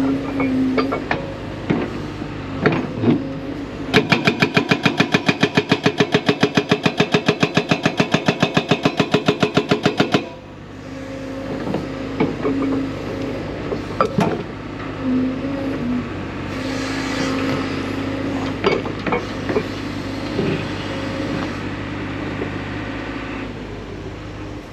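Hydraulic breaker on a 55,000 lb JCB excavator hammering in a fast, even run of about six blows a second for roughly six seconds, stopping abruptly. Around it the excavator's diesel engine runs with scattered clanks and knocks.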